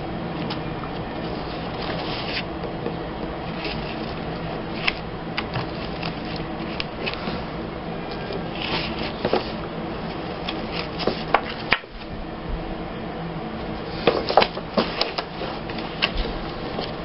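Paper journaling cards and tags being leafed through and handled, light rustles and clicks scattered over a steady background hum, busiest about two-thirds of the way in.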